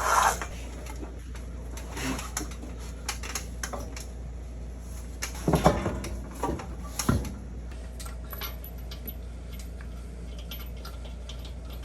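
Light metallic clinks and rattles of lug nuts and tools being handled while a wheel is fitted back onto the hub, with a few louder knocks about halfway through. A low steady hum runs underneath.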